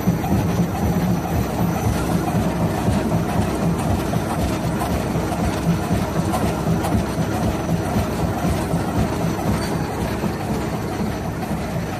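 ShengBaoTe SBT-620 fibre and rag cutting machine running as it feeds fabric scraps on its conveyor into the cutter: a steady, dense mechanical clatter.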